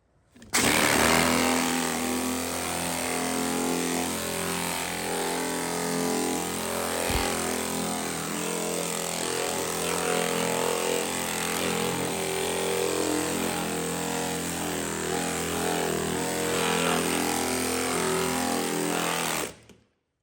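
A motor-driven machine running steadily, starting abruptly and cutting off abruptly near the end.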